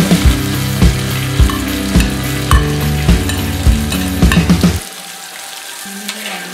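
Green chillies and sliced shallots sizzling in hot oil in a clay pot, stirred with a steel spoon that knocks against the pot. The sound drops off sharply about five seconds in.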